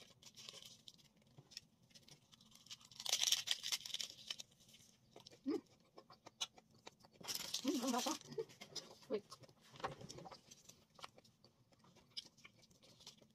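Crinkling and crackling from handling a seaweed-wrapped triangle kimbap (rice ball): two short bursts, about three seconds in and again past the middle, with scattered small clicks between.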